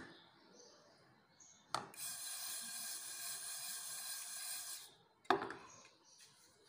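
Dry-roasting whole spices (cumin, coriander seeds, carom seeds and black peppercorns) in a frying pan: as the pan is shaken, the dry seeds rustle and slide across its surface for about three seconds. There is a sharp knock of the pan on the stove grate just before the rustling and another a little after it.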